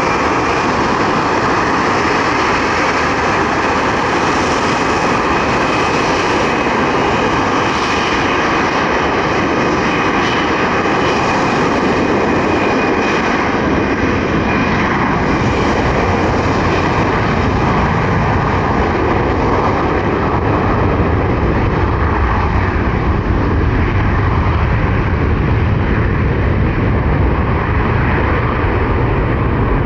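Jet aircraft engines running loud and steady, with the sound growing deeper about halfway through.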